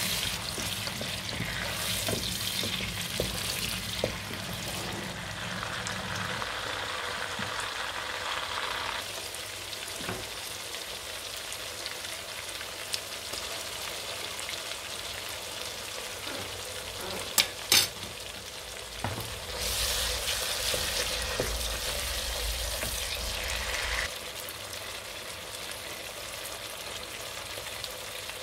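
Sliced tomatoes, onion and green chillies sizzling in hot oil in a non-stick pot, with a wooden spatula scraping and stirring them. Two sharp clicks come close together about two-thirds of the way through.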